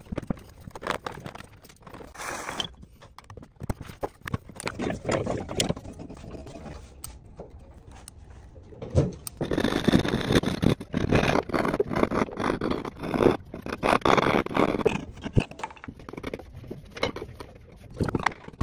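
Hand tools cutting wood: a chisel paring end grain with scattered clicks and short scrapes, then a dovetail saw rasping through a board in fast, even strokes for several seconds past the middle, the loudest part, followed by a few knocks.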